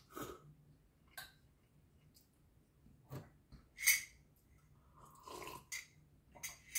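Close-up wet eating sounds of instant noodles: scattered chewing clicks and mouth smacks, a louder smack about four seconds in, and a longer wet slurp-like sound just after five seconds.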